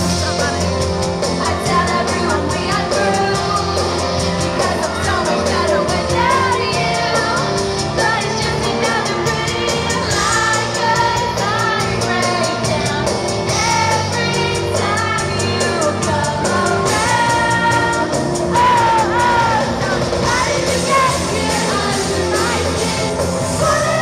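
Live pop-rock band playing loud through an arena sound system, with women singing the lead vocal into microphones.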